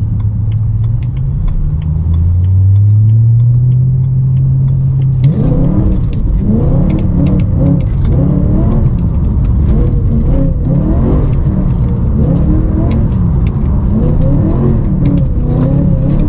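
The BMW S65 4.0-litre V8 of an E92 M3 running under throttle. Its note dips and then climbs over the first few seconds, and from about five seconds in the revs surge up and down over and over as the car loses grip on an oil spill on the wet road.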